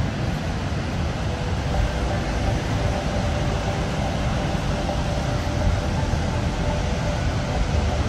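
Niagara Falls: a steady, deep rush of falling water, heaviest in the low end and unchanging in level.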